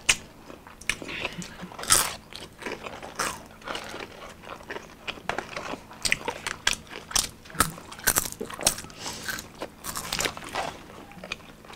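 Close-miked eating: bites and chewing of a burger and curly fries, with sharp crunches coming irregularly throughout.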